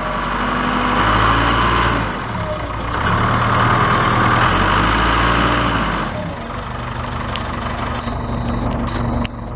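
Backhoe's diesel engine running, louder for the first two seconds and again from about three to six seconds in, then settling to a steadier, quieter idle.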